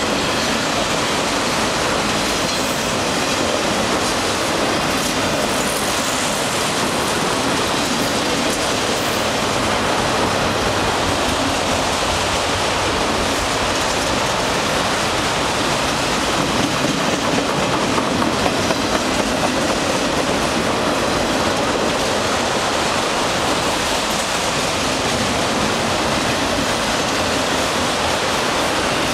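Canadian Pacific freight train of autorack cars passing close by: a steady rumble and clatter of wheels over the rails, a little louder around the middle.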